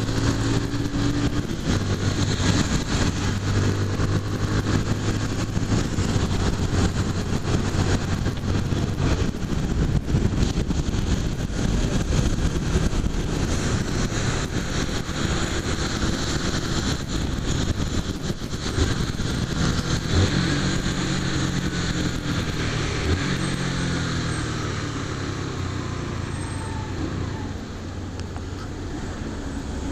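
Honda CG 150 Fan's single-cylinder engine running on the move, under heavy wind rush and tyre hiss on a wet road. Toward the end the engine note falls in steps and the overall sound eases off as the bike slows.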